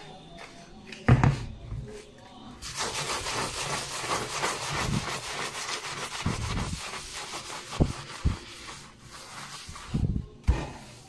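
A kitchen countertop being scrubbed by hand with a steel-wool scourer: a fast, rasping scrub that starts about two and a half seconds in and stops near the end, with a few short knocks around it.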